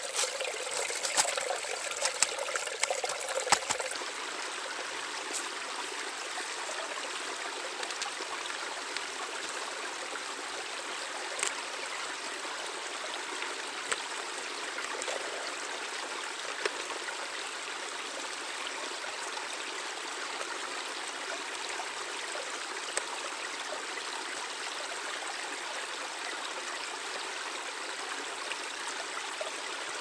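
Small forest brook babbling and trickling steadily. A few light clicks and knocks over the first four seconds, with scattered single clicks later.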